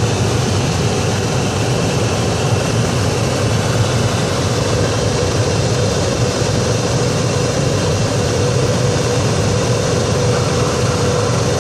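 2003 Ford Explorer's HVAC blower fan running steadily, a strong rush of air with a steady hum, blowing freely now that its leaf-clogged intake has been cleared.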